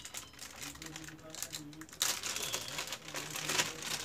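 Clear plastic bag crinkling as it is pulled open by hand to unwrap a small power adapter. The rustling becomes much louder about two seconds in.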